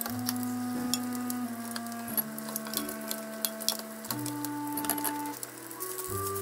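Soft background music of long held chords that change about every two seconds, with light clicks and taps of a spatula working a rolled omelette in a square frying pan.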